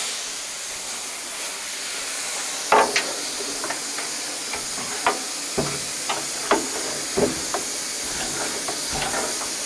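A steady hiss of compressed air from the truck's air system, with scattered short metallic knocks and clicks from about three seconds in.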